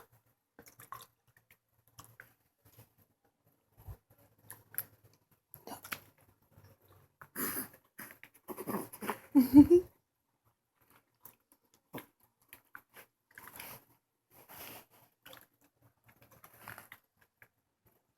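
A one-month-old baby's mouth noises: wet lip-smacking and sucking clicks coming in irregular runs, the rooting of a hungry infant expecting a bottle. A brief grunt near the middle.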